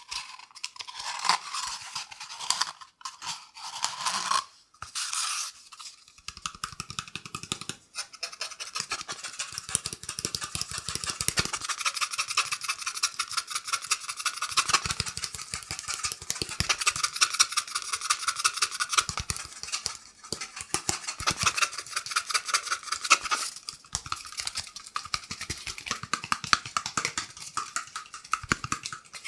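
Cardboard kitchen-roll tube scratched with fingernails: a few separate strokes with short pauses, then from about six seconds in a fast, continuous run of scratching.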